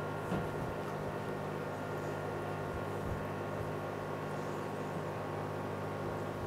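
Induction cooktop running under a stainless steel pan: a steady hum made of several held tones from its coil and cooling fan, with a couple of faint taps from the spoon stirring thick white sauce in the pan.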